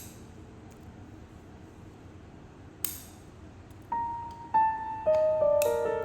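Light, sharp clinks of hard objects knocking together, one at the start and one about three seconds in. Solo piano music begins about four seconds in, with slow notes stepping down in pitch and a third clink near the end.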